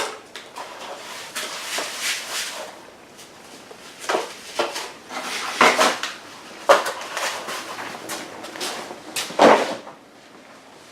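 Packaging and parts of a digital fence readout kit being handled during unboxing: irregular rustling and scraping, with a few sharper knocks and clinks.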